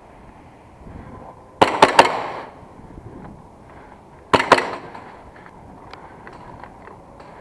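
Airsoft gun shots, ringing on in a large empty concrete hall. There is a quick run of three shots about a second and a half in, then two more about four and a half seconds in.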